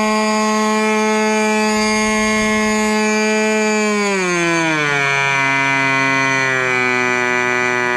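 Raduga R10R 10 cc two-stroke glow model-aircraft engine with a muffler, running at high revs while driving a propeller. About four seconds in, its revs fall away steadily to a lower speed, then hold.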